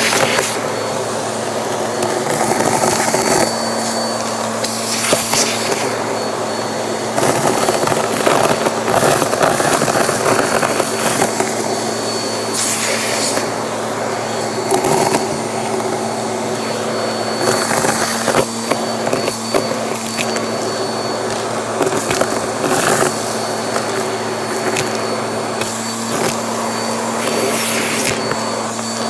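Vacuum cleaner motor running steadily with a high whine, its hose crevice tool sucking confetti-like debris out of a clear dust cup. The suction hiss surges again and again as the nozzle pushes into the debris.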